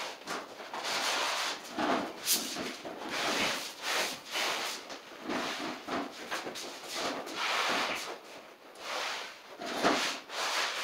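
Repeated rubbing and scraping on vinyl sheet flooring as it is worked into the base of the wall. The strokes are short, about one a second, with brief pauses between them.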